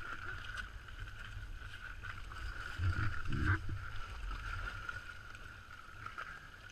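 Water sloshing and splashing at the edge of a hole in lake ice as a scuba diver hauls himself out onto the ice, over a low steady rumble; the louder splashes come about three seconds in.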